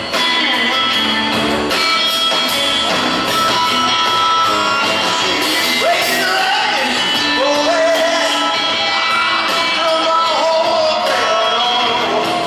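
Live band music from a trio of electric guitar, drum kit and upright bass playing in a large hall. From about six seconds in, a lead line slides up and down in pitch over the band.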